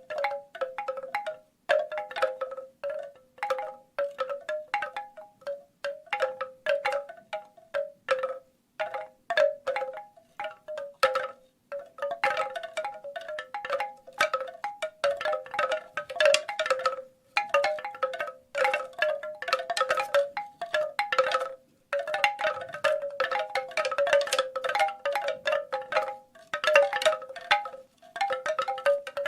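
Bamboo wind chimes clacking together in irregular clusters of hollow, pitched knocks, with short silent gaps every few seconds.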